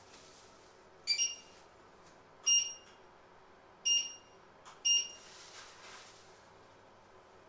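Four short electronic beeps, roughly a second to a second and a half apart: the hob's touch controls beeping as they are pressed to set the heat.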